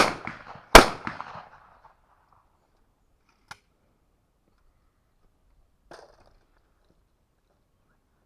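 Two shotgun shots about 0.8 seconds apart, fired at a simultaneous pair of clay targets, each trailing off in a short echo. A sharp click comes about three and a half seconds in, and a brief faint rattle near six seconds.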